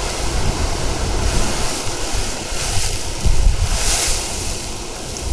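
Strong wind buffeting the microphone in a snowstorm: a heavy, rumbling rush with gusts of hiss swelling about a second and a half, two and a half, and four seconds in.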